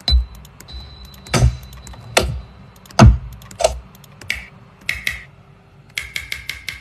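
Household noises used as percussion in a homemade beat: four deep thuds with sharp clicks and taps between them, then near the end a rapid run of short clicks, about five a second.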